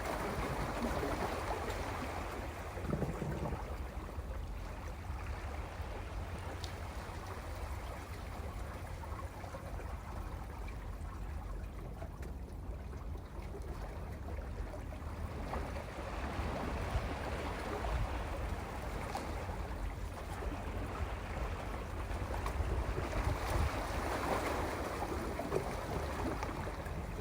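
Sea waves washing against a rocky shore, surging and receding over a steady low rumble: louder near the start, easing off midway, and building again toward the end.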